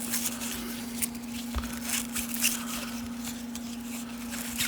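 1990 Upper Deck baseball cards handled and flipped over one by one, a string of short papery swishes and rustles as the card stock slides across itself, over a steady low hum.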